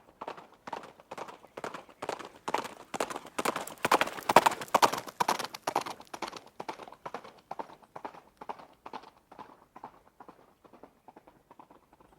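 A running horse's hooves clip-clopping on hard ground at about three strikes a second. The hoofbeats grow louder to a peak about four seconds in, then fade as the horse passes and moves away.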